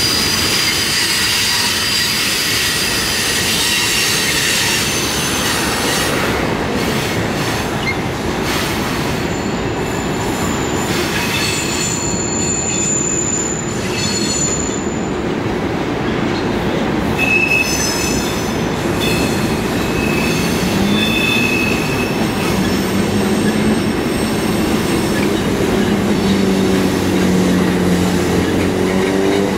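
Freight cars rolling past on the rails with a steady rumble, the wheels squealing in thin high tones that come and go, strongest near the start and again in the middle.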